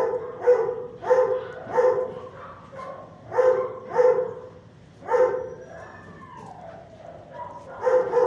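Dog barking in short runs of two or three sharp barks about half a second apart, with pauses between the runs. About two-thirds through there is one drawn-out call that falls in pitch.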